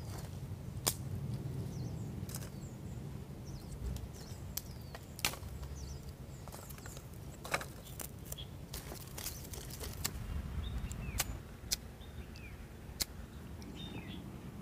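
Dry sticks clicking and knocking together as they are picked up and laid onto a pile by hand: about a dozen sharp, scattered clicks over a low rumble, with small birds chirping faintly in the background.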